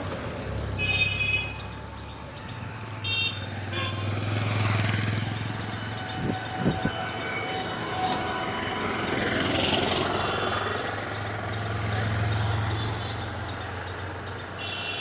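Road traffic: a steady engine drone with vehicles passing, and two short vehicle horn toots in the first few seconds.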